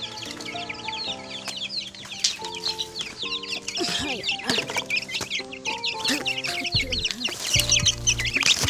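Hens clucking, with small birds chirping rapidly, over gentle background music of held notes.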